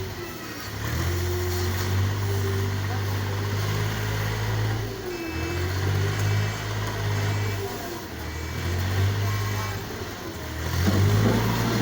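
A motor or engine running with a steady low hum that dips briefly several times.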